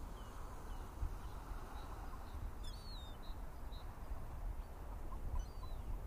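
Faint outdoor ambience: a steady low rumble with a few short, high bird chirps about three seconds in and once more near the end.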